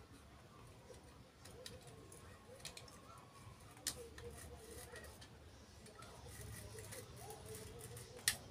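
Utility knife blade trimming the fibrous husk of a coconut: faint scraping with a few sharp clicks, the loudest near the end.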